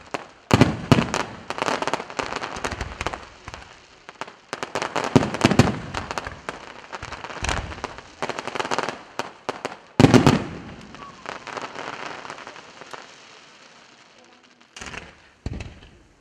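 Aerial fireworks display: rapid volleys of bangs and crackling from rising comets and splitting star effects, coming in waves. The loudest burst comes about ten seconds in, then the firing thins out, with two short bursts near the end.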